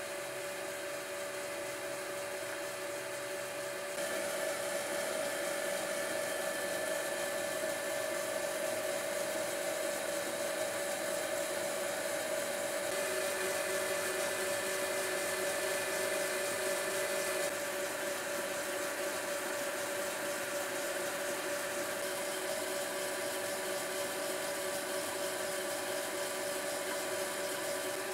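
Myford lathe running steadily with its spindle turning at about 640 rpm: an even motor-and-drive hum with a steady whine. The level steps up slightly about four seconds in.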